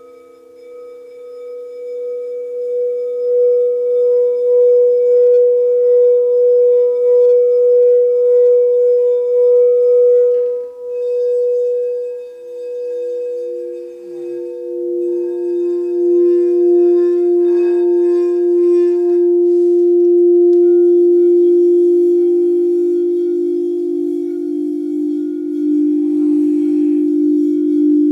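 Quartz crystal singing bowls sung by rubbing a mallet around the rim. A pure tone swells up and holds with a slow, even pulse, then fades about halfway through as a lower-pitched bowl builds up and carries on.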